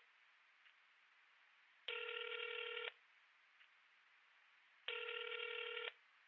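Telephone ringback tone heard down the line: the far phone is ringing and nobody has answered yet. It comes as a buzzy tone about a second long, twice, three seconds apart.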